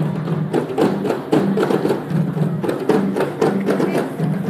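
Loud percussive music, with drums struck in a fast rhythm over short, repeated low notes.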